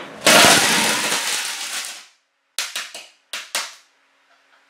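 A loud blast as lighters explode inside a running microwave oven, then a rush of noise that fades over about two seconds. About two and a half seconds in come five sharp cracks in quick succession.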